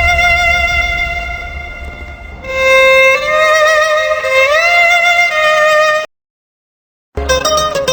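A violin playing a slow melody of long held notes with slides up between them; it fades, comes back in stronger, then cuts off into about a second of silence. A different piece of music with quick plucked notes starts near the end.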